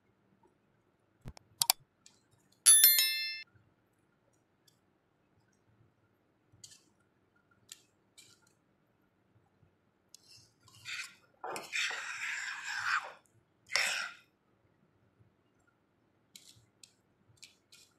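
A sharp click, then a metal spoon clinking once against a dish with a short ring. About eleven seconds in come two seconds of scraping and crinkling as sauce is spooned onto the chicken in a foil-lined tray, followed by one more short scrape.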